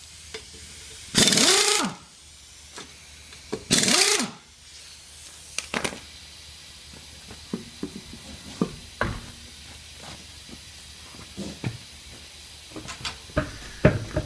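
Pneumatic impact wrench undoing the wheel bolts: two short bursts, about a second in and about four seconds in, each winding down in pitch as it stops. After that come scattered light clicks and knocks as the wheel is taken off the hub.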